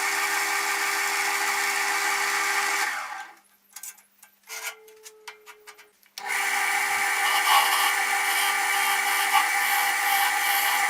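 Wood lathe running with a steady hum while a tool works the spinning birch. About three seconds in the sound falls away, leaving a few light clicks and a brief tone. About six seconds in the lathe sound comes back abruptly.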